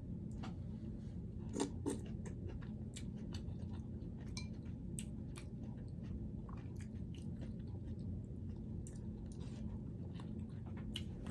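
Close-miked chewing and mouth sounds of a person eating, with scattered small clicks and two sharper clicks a little under two seconds in, over a steady low hum.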